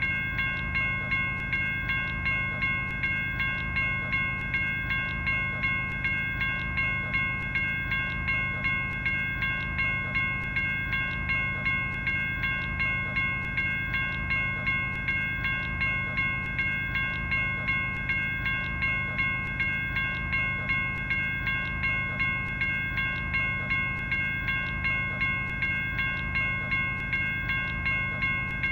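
General Signals Type 1 electronic railroad crossing bell ringing continuously at an even pace of about two strikes a second. Each strike is a bright, bell-like ding made of several steady tones.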